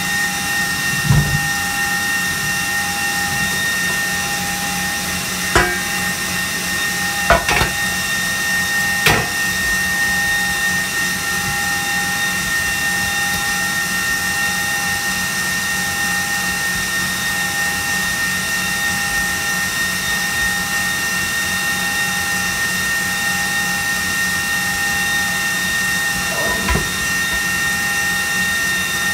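Electric mixer motor running steadily with an even whine, beating the eggs for a sponge cake batter. A few short knocks come from round metal cake pans being handled.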